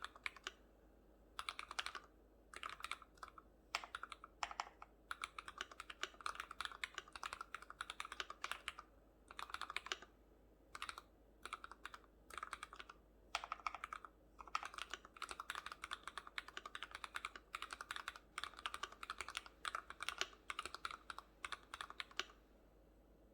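Typing on an Archorn FX2 mechanical keyboard with Cherry MX RGB Red linear switches lubricated with Super Lube spray, stock keycaps, Permatex-lubed stabilizers and a silicone and foam dampened case. Rapid keystrokes come in bursts of a second or two with short pauses between, ending shortly before the end.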